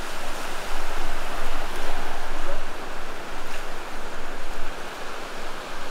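Surf washing up on a sandy beach: a steady rushing noise that swells and eases.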